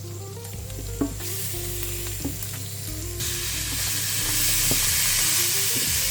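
Onions, shallots, ginger and garlic frying in olive oil in a pan while being stirred: a sizzle that grows louder about a second in and again about three seconds in, with a few sharp knocks of the stirring utensil against the pan. Soft background music plays underneath.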